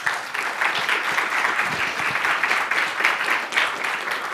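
Audience applauding: a steady crowd of many hands clapping together.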